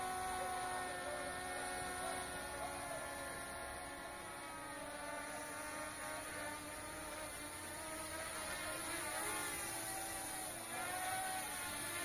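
L900 Pro SE MAX quadcopter's brushless motors and propellers whining as it flies overhead. The pitch wavers twice in the second half as the drone adjusts, and the sound grows louder near the end as it comes closer.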